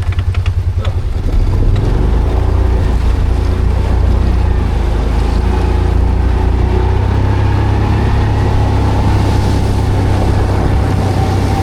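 Vehicle engine running with a strong low rumble: a fast, even pulsing in the first second settles into a steady drone.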